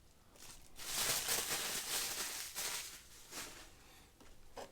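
Rustling and scraping of a Funko Pop box and its packaging being handled, a continuous scratchy rustle for about two seconds, then a brief second rustle.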